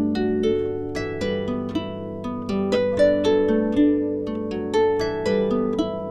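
Background music: an instrumental passage of quick plucked string notes over a steady low note, with no singing.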